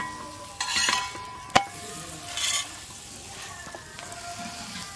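Oiled triangular paratha sizzling on a hot iron tawa while a metal spatula spreads the oil and presses it, with sizzling flaring up about half a second in and again near the middle. A sharp clink of the spatula against the tawa comes about a second and a half in.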